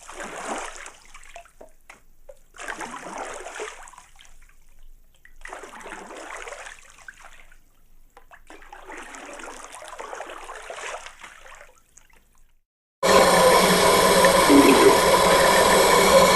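Water splashing and sloshing in four separate surges, each lasting about two seconds. Near the end a much louder, steady droning noise with several held tones starts abruptly.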